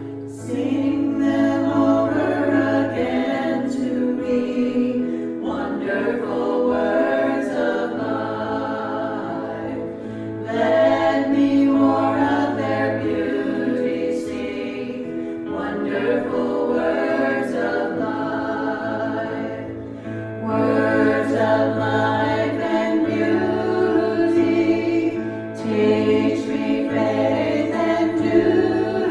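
Worship music: a group of voices singing a gospel-style worship song together over a steady low instrumental accompaniment, in long held phrases that start afresh about ten and twenty seconds in.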